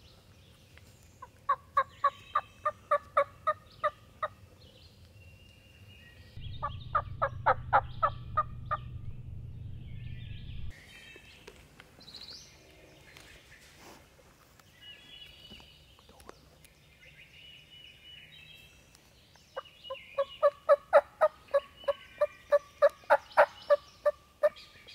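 Wild turkey calling in three runs of evenly spaced notes, about four a second: the turkey calls being used to pull a gobbler across the river.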